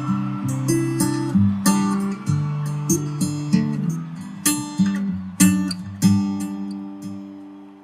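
Acoustic guitar strumming and picking slow chords, each strum ringing on. The last chord fades out over the final two seconds.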